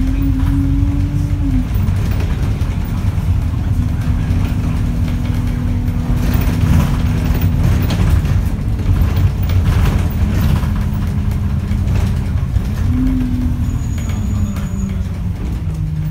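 Inside an Alexander Dennis Enviro200 single-deck bus under way: the diesel engine and drivetrain drone steadily over road rumble and body rattles. The drone's pitch drops a few times as the gears change, about two seconds in and again near the end.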